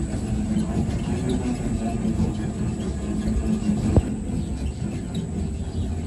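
Detergent powder mixing machine running steadily, a low motor hum and rumble as it churns the washing powder, with a single sharp knock about four seconds in.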